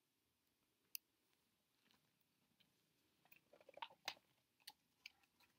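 Near silence: room tone with one faint click about a second in and a scatter of small soft clicks and rustles from about three seconds in.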